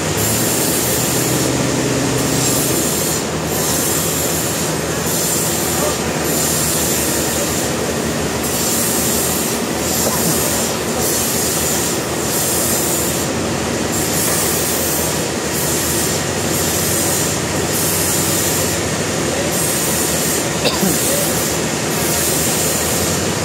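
Sawmill blade cutting through a log: a loud, steady grinding run with a constant high whine, its upper noise swelling and easing every second or so.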